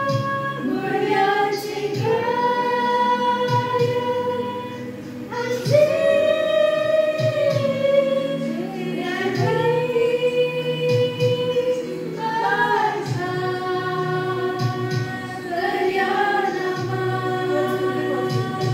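A small group of young women singing a slow Christmas carol together to a karaoke backing track, holding long notes and sliding between them.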